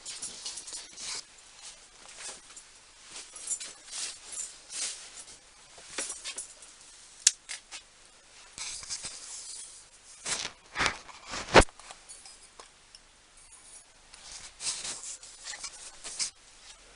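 Light clicks, scrapes and rustles of objects being handled on a workshop bench, with two sharper knocks a little after ten seconds in.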